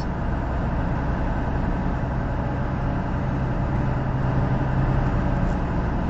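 Steady engine drone and road noise inside a commercial truck's cab while driving downhill, with a low steady hum under it.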